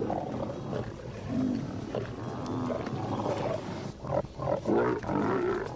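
Several lions growling and snarling over one another as they jostle to feed on a zebra carcass. The growls grow louder and sharper in the last couple of seconds.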